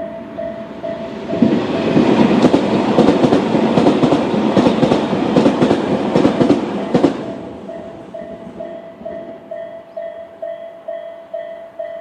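Japanese level-crossing warning bell (Tobu's standard 'sound A') ringing about twice a second. From about a second in to about seven seconds in, a Tobu 100 series 'Spacia' express passes, its wheels rumbling and clacking louder than the bell. The bell keeps ringing after the train has gone.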